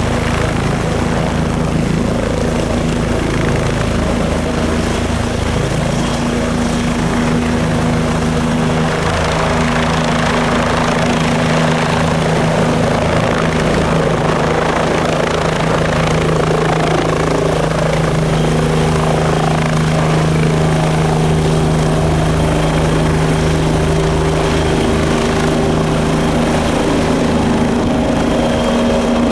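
Bell 429 helicopter at takeoff power, its twin turboshaft engines and four-blade main rotor lifting it off the pad and climbing away. It makes a loud, steady rotor drone with a thin high turbine whine above it.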